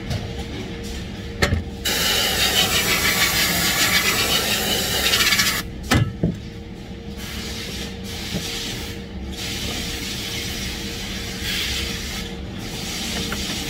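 Compressed-air gun hissing in one long blast of about three to four seconds, then shorter, fainter bursts later, with a couple of sharp knocks from handling the gun and parts.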